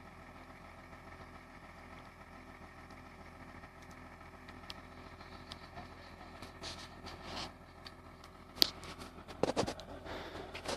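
Wheel excavator's diesel engine running steadily, with scraping and a few sharp knocks in the second half; the loudest is a single sharp crack a little past two-thirds of the way in.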